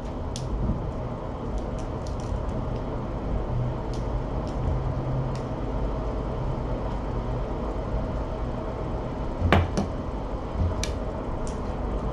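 Steady low room hum with scattered light clicks and knocks, the loudest one about nine and a half seconds in.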